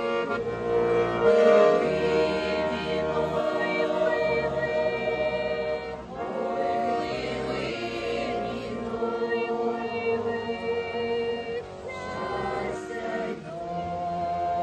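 Women's folk choir singing a Ukrainian folk song together, accompanied by an accordion. The singing goes in long held phrases that break off briefly about six and again about twelve seconds in.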